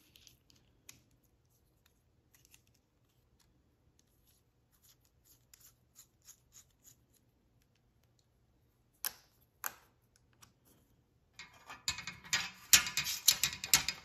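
Small magnets and aluminium pieces of a magnetic fidget toy clicking and clinking together as they are handled. At first there are only scattered light clicks. Two sharper clicks come about nine seconds in, then a quick run of clicking and rattling near the end, which is the loudest part.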